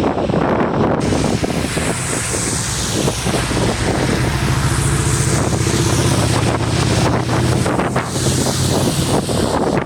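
Strong wind buffeting the microphone over the wash of breaking surf, with a low rumble swelling in the middle.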